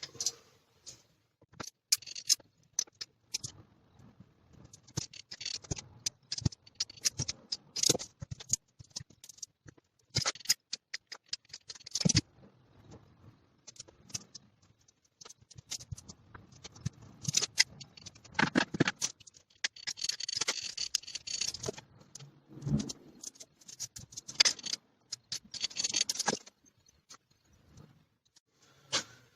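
Irregular clicks, taps and scrapes of hands working small brackets into Tigerseal sealant on a panel, pressing them on and spreading the sealant, with one sharper knock about twelve seconds in.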